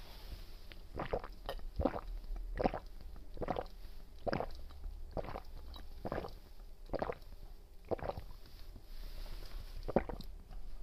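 A person gulping a drink from a bottle close to the microphone, swallowing in a steady rhythm of a little under one gulp a second, about a dozen in all, with the last swallow coming after a short pause near the end.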